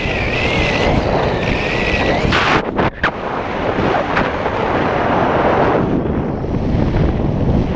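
Wind rushing over the microphone under an open parachute canopy during a steep turn. A high, wavering whistle-like tone rides on it for the first two seconds or so.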